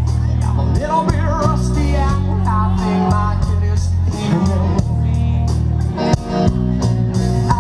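Live rock band playing loudly: a male singer on a handheld microphone over electric guitar through Marshall amplifiers, bass guitar and a drum kit keeping a steady beat. The sung line wavers most clearly in the first half.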